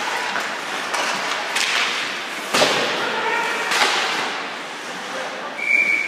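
Ice hockey play: sharp cracks and scrapes from sticks, puck and skates on the ice, heard several times. Near the end a whistle blows one steady high note for about a second, stopping play.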